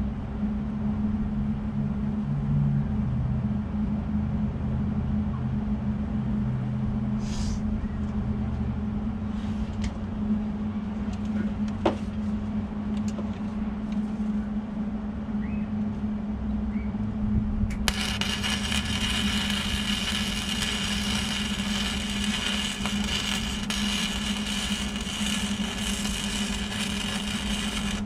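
Electric arc welder crackling and hissing steadily for about the last ten seconds, welding a nut onto the stub of a broken-off bolt so it can be turned out. Before that, only a steady low hum with a few faint clicks.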